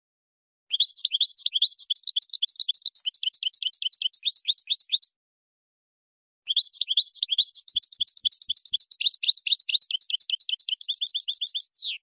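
A small finch singing two long phrases of fast repeated chirps and trills, a pause of over a second between them; the second phrase speeds up near the end and finishes on a quick falling note.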